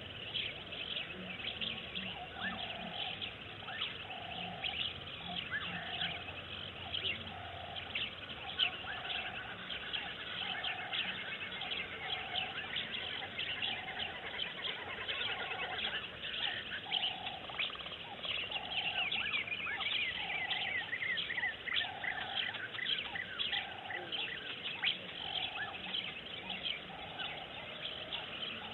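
Birds chirping and calling in a busy chorus of short high notes, with one lower call repeated steadily about once a second.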